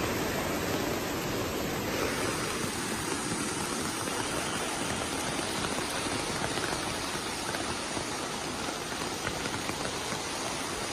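Fast-flowing floodwater rushing across a street in a steady wash of water noise, changing slightly in character about two seconds in.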